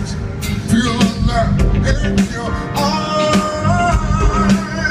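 Live band music with a steady bass line, drum beat and guitar, and a deep male voice singing a wavering melody over it.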